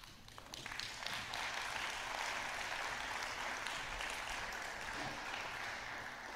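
Audience applauding. The clapping builds up within the first second, holds steady, and eases slightly near the end.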